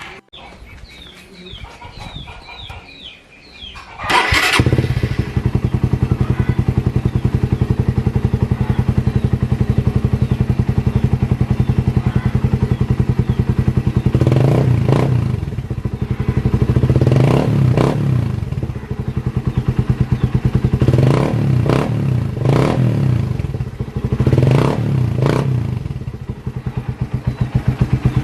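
Suzuki Raider 150 engine breathing through an aftermarket Apido canister exhaust with its silencer insert fitted, on a Daeng big elbow header: it starts about four seconds in, idles steadily, then is revved in several short throttle blips in the second half.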